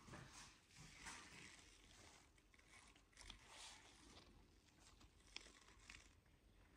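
Near silence: faint room tone with a few scattered small clicks and rustles.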